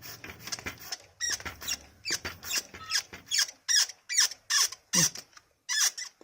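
Hero Sprint RX3 bicycle's rear suspension squeaking, a quick regular run of short high squeaks that starts about a second in, roughly two to three a second. The squeak comes from the dry pivot below the rear shock, not the shock itself, and is cured by oiling that pivot.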